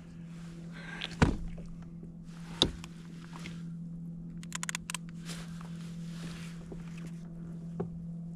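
A few sharp knocks and thumps against a small boat, with some light clicking about halfway through, over a steady low hum.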